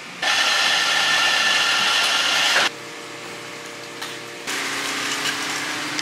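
Pressure washer blasting water against a shop's plate-glass windows: a loud, steady hiss that starts suddenly and cuts off after about two and a half seconds. A quieter mechanical hiss and hum comes in about four and a half seconds in.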